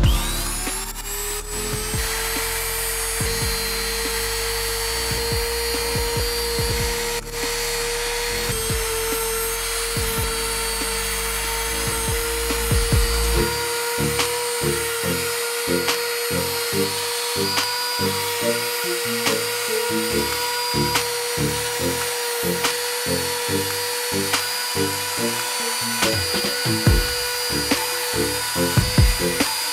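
Spindle router motor spinning up to speed and running steadily with a high whine, over background music with a beat.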